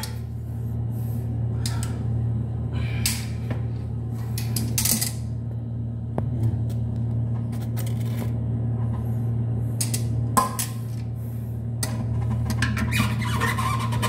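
Scattered rustles, clicks and scrapes of hands and a metal pair of pliers working at the tank bolt under a toilet, busier near the end as the pliers go onto the nut. A steady low hum runs underneath.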